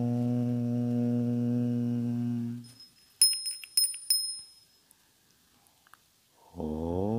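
A deep male voice chanting a long, steady "Om" that stops about two and a half seconds in, followed by a small bell ringing several times in quick succession; the next drawn-out "Om" begins near the end.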